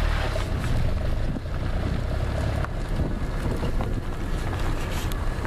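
Wind buffeting the microphone: a steady low rumble and rushing noise, with a few faint clicks.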